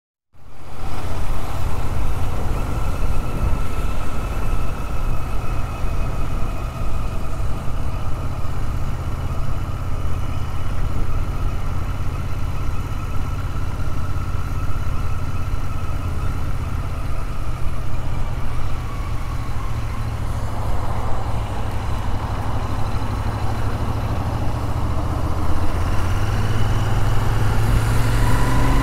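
Motorcycle engine running steadily while riding, heard from the rider's seat with road and wind noise. The surrounding traffic grows louder near the end.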